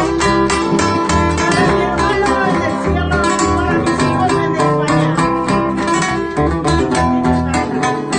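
Live acoustic guitar music played through a small PA, with plucked notes over chords in a Latin ballad style.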